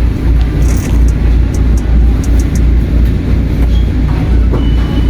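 Train running, a loud steady low rumble with rail noise.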